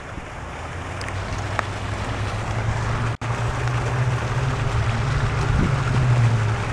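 A steady low hum with wind noise on the microphone.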